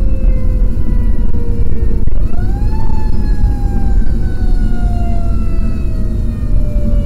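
Fire engine siren heard from inside the cab over a heavy low rumble of engine and road. It winds down slowly, sweeps quickly back up about two seconds in, and then winds down slowly again.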